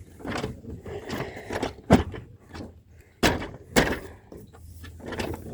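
Hard plastic parts of a Hayward suction pool cleaner knocking and clicking as they are handled and pushed together. There are a few sharp knocks, one about two seconds in and two more just after the three-second mark, with lighter rattling between them.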